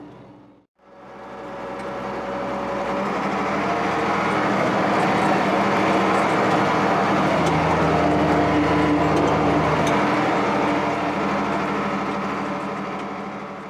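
A steady engine sound with a constant pitch. It fades in from silence about a second in and fades out again at the end.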